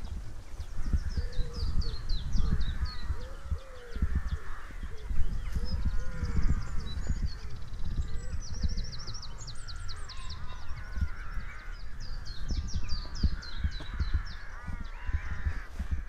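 Crows cawing again and again over small songbirds singing high and fast, with a quick trill about halfway through. Wind rumbles and buffets the microphone throughout.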